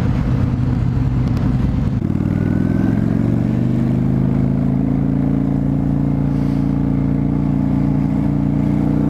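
1998 Honda VT600 Shadow's V-twin engine, with what the rider believes are open exhausts, running under way. For about two seconds it gives a rough low thrum, then its note climbs as the revs rise and holds steady.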